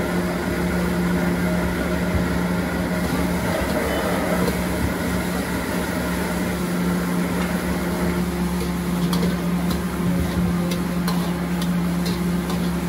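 A wok stove's burner blower fan running with a steady hum. A few light, sharp metallic clicks come in the second half.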